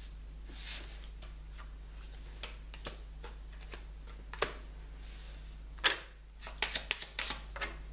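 Playing-size tarot/oracle cards handled on a table: soft swishes and light taps as cards are slid and set down, a sharp snap just before six seconds, then a quick run of card clicks as the deck is shuffled, over a low steady hum.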